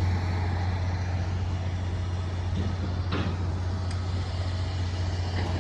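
A large engine running steadily with a constant low hum, with a faint brief clank or knock about three seconds in.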